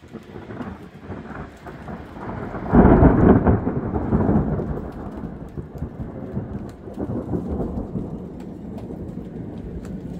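Thunder rumbling: the roll starts at once, turns sharply louder a little under three seconds in, then rolls on and slowly fades.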